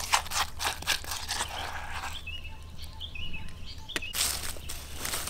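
Coarse chili paste being stirred and scraped around a stone mortar with a green plant stalk: a run of quick, wet scraping clicks. About two seconds in the stirring pauses and small birds chirp, then the scraping starts again near the end.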